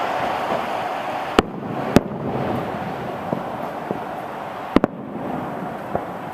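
Distant fireworks shells bursting: a series of sharp, single bangs at irregular intervals, about six in all, including a quick double bang about three-quarters of the way in. They sit over a steady background hiss.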